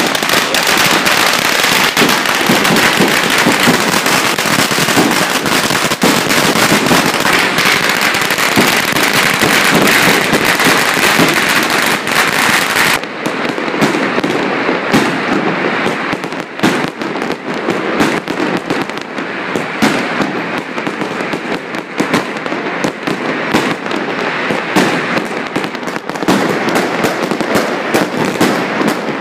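A string of firecrackers going off in a dense, unbroken rattle of bangs. About 13 seconds in it changes abruptly to sparser, separate bangs and crackles of fireworks bursting overhead.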